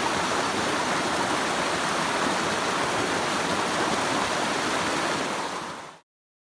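Creek water rushing steadily over a small rocky cascade, a constant even rush that cuts off suddenly about six seconds in.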